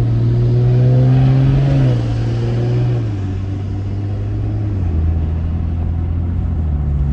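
BMW 540i engine drone heard inside the car while driving, its pitch holding steady and then dropping in quick steps several times as the automatic transmission shifts up, with a slight rise near the end.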